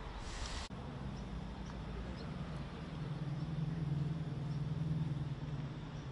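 A vehicle engine running with a low, steady hum that swells about three seconds in and eases off near the end.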